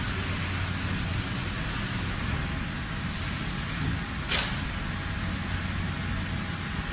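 Machinery running with a steady low hum, a short hiss about three seconds in and a sharp burst of hiss about a second later.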